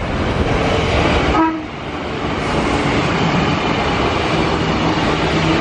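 A Tokyu 8500-series electric commuter train (set 8510F) passing close by: a steady rush of wheel and rail noise with a faint low hum from its motors.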